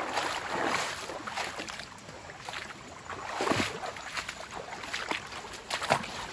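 Shallow river water splashing and sloshing around a person wading and working a fishing net in it, irregular splashes with a sharper one near the end.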